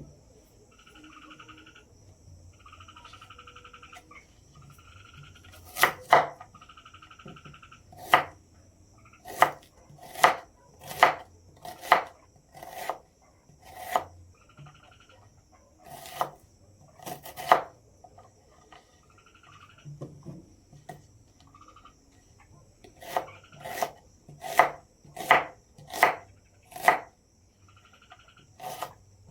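Knife chopping on a cutting surface in two irregular runs of sharp strokes, about one or two a second. A steady high insect drone and short repeated chirping calls sound between the strokes.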